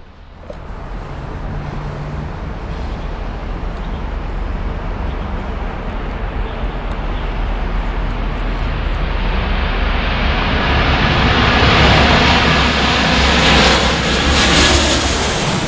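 Twin-engine jet airliner flying low overhead: its jet noise swells steadily from about half a second in, gets a brighter, hissing edge as it comes directly overhead, and is loudest near the end.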